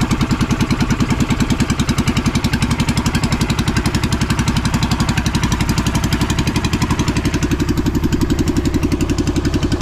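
Small engine of a narrow motorized fishing boat running steadily, with a rapid, even chugging pulse, driving the boat across the water.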